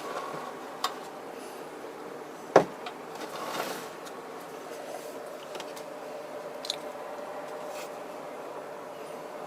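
Plastic model-kit parts being handled on a workbench: scattered small clicks and taps, the loudest a sharp knock about two and a half seconds in, over a steady low hum.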